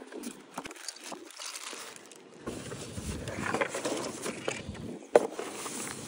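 Paper and plastic packaging rustling and crinkling as a keyboard is unboxed by hand, with a sharp knock about five seconds in.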